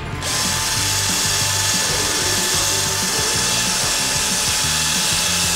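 Power drill running steadily, cleaning the dirty, worn bushing seat on a steel anti-roll bar. Background music plays underneath.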